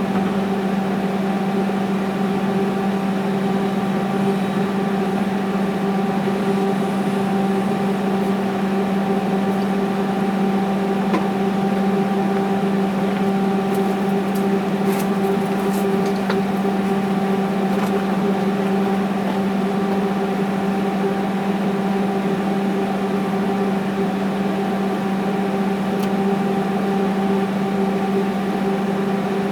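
A steady, unchanging machine hum, one low tone with its overtones, with a few faint clicks around the middle.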